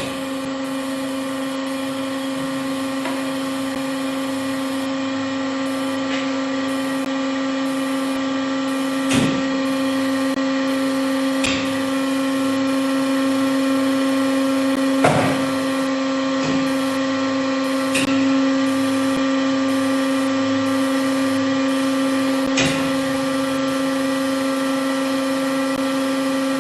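TRAU150 automatic metal-cutting band saw on a dry run with no material: the blade motor and hydraulic pump run with a steady hum and whine, and about five sharp clunks come from the hydraulic vices feeding and clamping.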